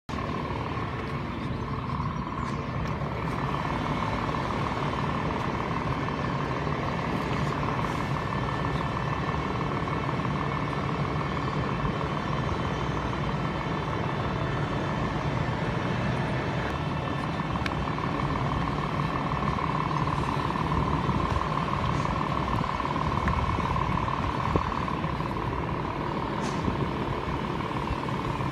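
Heavy diesel vehicle engines running steadily, a constant low rumble with a steady mid-pitched whine over it.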